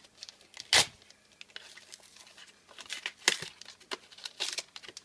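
Foil wrapper of a Pokémon trading-card booster pack crinkling and tearing as it is ripped open by hand: irregular crackles, with a loud rip about a second in and another near three seconds.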